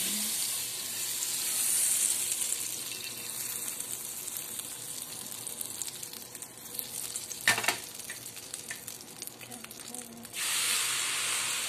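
Butter melting and sizzling in a hot non-stick frying pan, with a single knock on the pan about seven and a half seconds in. Near the end the sizzling gets suddenly louder as pancake batter is poured into the hot butter.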